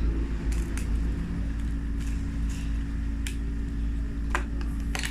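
Sticky homemade glue-and-baking-soda slime being mixed and pulled by hand, giving a few sharp sticky clicks over a steady low hum.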